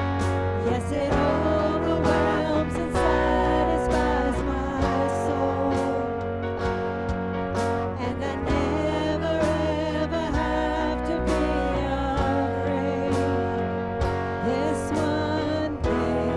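Worship music: a singer with guitar-led band accompaniment performing a Christian praise song.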